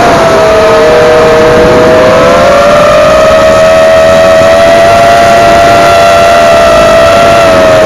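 Eachine Falcon 250 quadcopter's electric motors and propellers whining in flight, very loud. Several close tones hold nearly steady, lift slightly about two seconds in and dip again near the end, over a rush of air noise.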